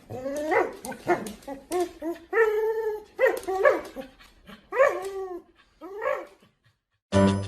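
A dog whining and yipping in a series of short calls that rise and fall in pitch, with one longer held call about two and a half seconds in.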